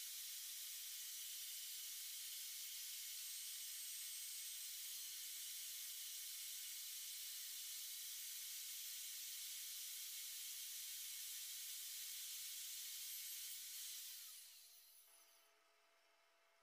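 Table saw running at steady speed with no cutting, a steady hiss over a faint hum, then switched off about 14 seconds in and winding down to a stop.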